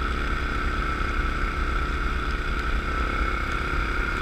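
ATV engine running steadily at trail speed, a low rumble with a constant high whine over it.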